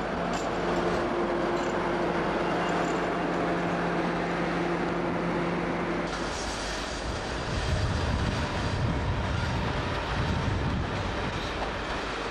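British Rail AC electric locomotive moving slowly past with a steady electrical hum. About halfway in the hum stops, and train wheels run over the rails with a low rumble as a van coach rolls by.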